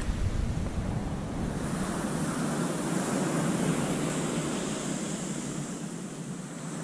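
Steady rushing noise of water and wind outdoors, with wind buffeting the microphone as a low rumble in the first second or so.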